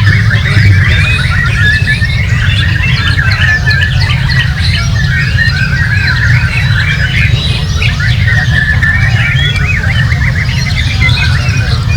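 Many caged songbirds singing at once in a dense, overlapping chorus of quick whistles and chirps, over a steady low rumble.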